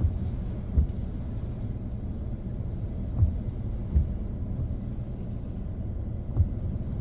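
Low steady rumble inside a car's cabin, stopped at a traffic light in the rain, with five soft thumps; the later ones come in pairs under a second apart, as the windshield wipers sweep across and back.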